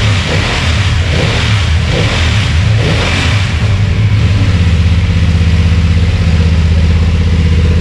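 BMW F 900 XR motorcycle's parallel-twin engine running in place, busier and noisier over the first few seconds, then settling into a steady, even idle.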